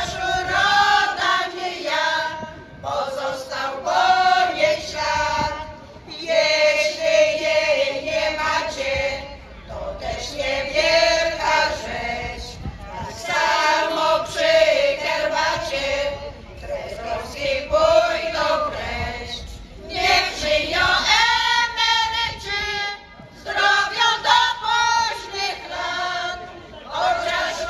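A choir of older women singing a song together, amplified through stage microphones and loudspeakers, in phrases of a few seconds broken by short pauses for breath.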